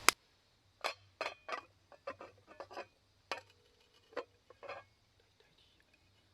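Light clinks and knocks of cooking utensils and cookware: about a dozen irregular, separate strikes over five seconds, one leaving a short ring.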